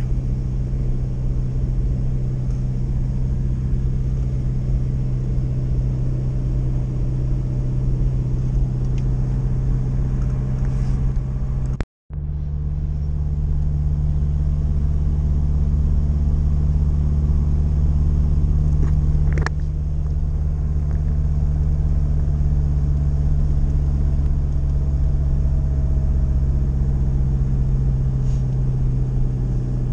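UAZ-452 (Buhanka) van's engine droning steadily while driving, heard inside the cab. The sound cuts out for a split second about twelve seconds in. A short tick comes about twenty seconds in, and the drone then drops a little.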